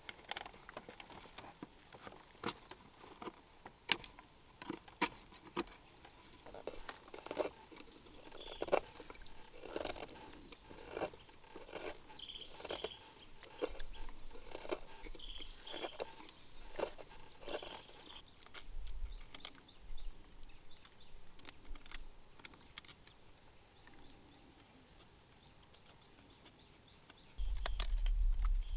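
Knife blade cutting and shaving a wooden spoon blank: crisp scattered cuts at first, then a steady run of strokes a little more than one a second, which dies away after about 18 seconds. A faint steady high-pitched whine sits underneath, and a low rumble starts suddenly near the end.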